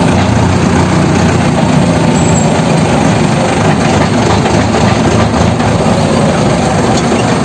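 Mahindra Arjun Novo 605 DI-MS 4x4 tractor's diesel engine running loud and steady, with an even low drone.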